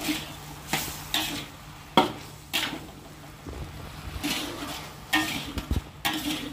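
Metal spatula scraping and stirring squid rings around a hot wok, in short strokes about once a second, over a light sizzle of the soy sauce frying.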